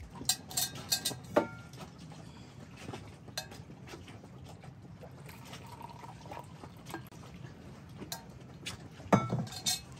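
Coffee poured from a steel vacuum flask into plastic mugs: a faint trickle of liquid. Sharp clicks and clinks from handling the flask and its screw cap come in the first second or so and again near the end.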